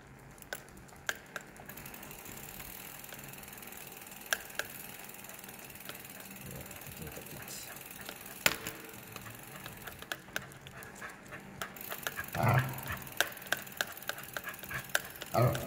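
Bicycle rolling slowly on a concrete floor: a steady rolling noise with scattered sharp clicks, which come more often in the last few seconds.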